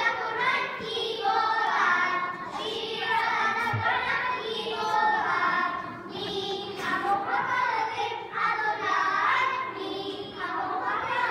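A group of young children singing together in phrases.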